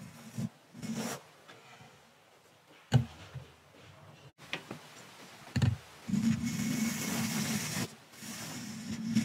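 A small thin brush stroked against a microphone's grille, close up: a short stroke near the start, then two long, steady brushing passes in the second half. Two sharp knocks, about three seconds in and again before six seconds, are the loudest sounds.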